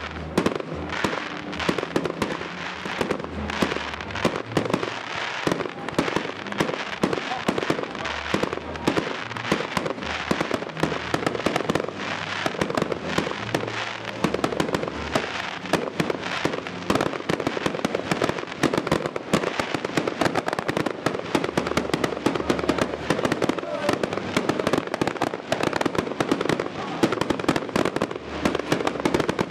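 Aerial fireworks display: a dense, unbroken run of shell bursts, bangs and crackles.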